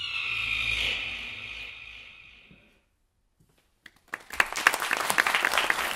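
The music's last note rings out and fades away over about three seconds, then after a brief silence an audience breaks into applause about four seconds in.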